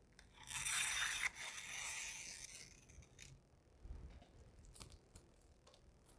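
3M 1080 satin dark grey vinyl wrap film being cut with a utility knife and torn at the end of a grille bar: a rasping tear about a second long, then a softer scraping for another second or so, followed by a few light clicks.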